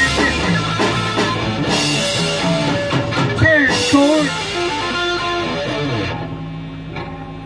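Live electric guitar playing, a rock-blues jam with a few notes sliding in pitch near the middle, over drums with cymbals. The playing thins out and drops in level about six seconds in.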